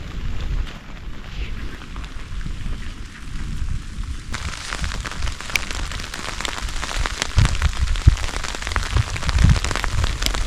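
Storm wind gusting and buffeting the microphone. About four seconds in, the sound switches abruptly to a dense patter of small, sharp ticks over the gusts.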